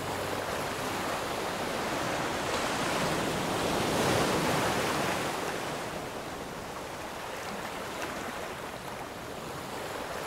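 Ocean surf breaking and washing up a pebble beach, swelling about four seconds in and easing off again.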